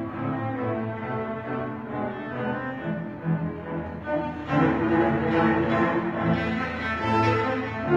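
Cello ensemble with a double bass playing held notes under a conductor, swelling louder about halfway through.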